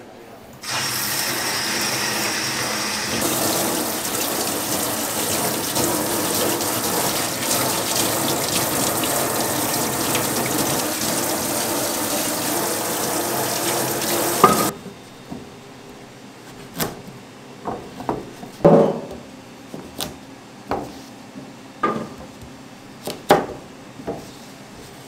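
Kitchen tap running into a stainless steel sink while long burdock roots are scrubbed under the stream. About two-thirds of the way through, the water stops abruptly, and a scattering of short, sharp knocks follows.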